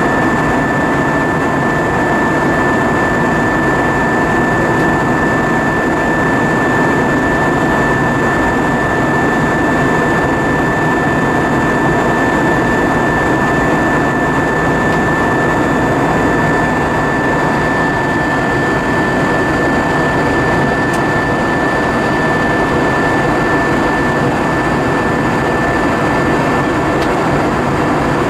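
Steady cabin noise inside an Airbus A320-232 in flight: an even rush of air and engine drone with a thin, steady high tone above it.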